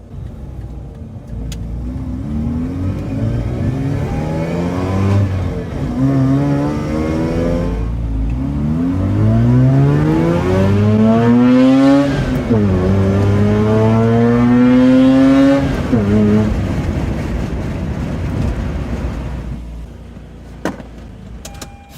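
Mazda RX8's two-rotor rotary engine accelerating hard through the gears of its six-speed manual: the revs climb, drop sharply at each upshift and climb again several times, then settle to a steadier, quieter run for the last few seconds.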